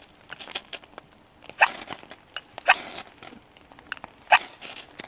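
Knife spine scraped hard down a ferrocerium rod (fire steel) over birch-bark tinder: three short, sharp scrapes about a second apart, with fainter scrapes between. The rod is worn with ridges along it, which the owner suspects keeps it from sparking as well as it should.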